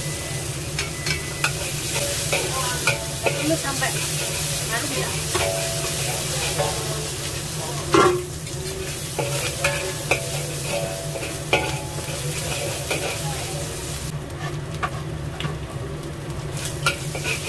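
Chopped garlic, chilies and fermented black beans sizzling in oil in a wok while a metal spatula stirs them, with frequent clicks and scrapes of metal on metal and a sharp knock about eight seconds in. A steady low hum runs underneath, and the sizzle thins for a couple of seconds near the end.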